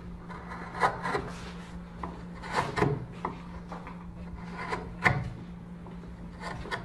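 Irregular scraping and rubbing strokes on wood, several louder ones about a second apart, over a steady low hum.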